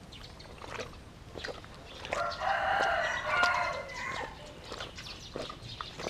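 A rooster crowing once, a single call lasting about two seconds starting about two seconds in, with scattered short clicks and knocks around it.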